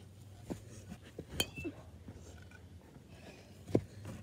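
Easton Beast USA baseball bat striking a ball with a short metallic ping about a second and a half in, followed by a duller knock near the end.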